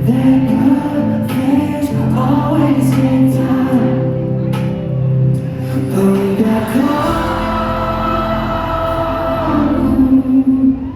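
Live pop music: a sung vocal melody with long held notes over steady instrumental backing.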